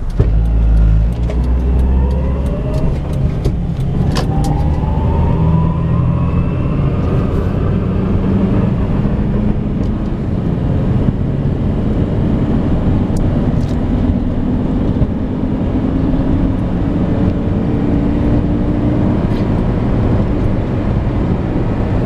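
Inside the cabin of a 2005 Honda Element 4x4, its four-cylinder engine pulls the car up through the gears to highway speed. A steady low engine and road rumble runs throughout, and a faint whine rises in pitch over the first several seconds.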